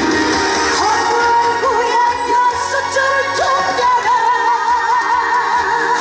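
A woman singing a trot song live into a handheld microphone over loud backing music, holding a long note with wide vibrato about four seconds in.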